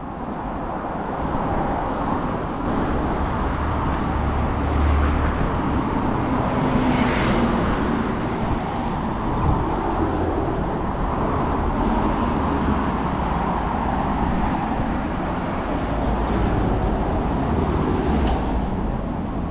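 Road traffic: a steady wash of vehicles passing, swelling and easing with a low rumble.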